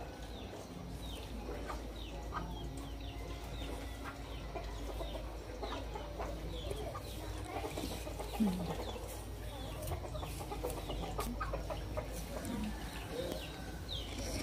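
Chickens clucking: short, scattered calls throughout, with one louder, low, falling sound about eight and a half seconds in.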